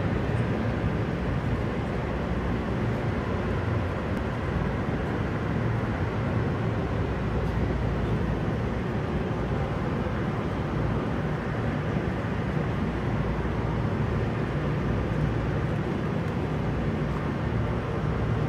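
Steady, even rumbling background noise with no distinct events: the hall's ambience while the diver is still.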